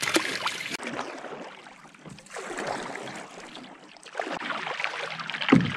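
Water splashing and sloshing around a canoe, with one short low thump near the end.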